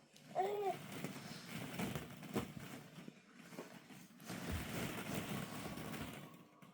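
Plastic ball-pit balls rustling and clattering against each other as a baby moves among them, in two spells of crackly rattling with a short baby vocal sound about half a second in.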